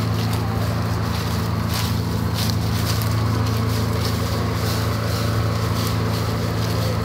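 Steady low mechanical hum from the Union Pacific steam excursion train's cars, with wind noise on the microphone.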